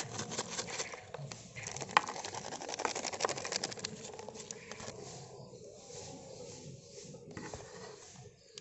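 Coarse salt and spice powder sprinkled onto a steel plate of fire-roasted brinjals, grains pattering on the metal as a dense run of small ticks that thins out after about four seconds.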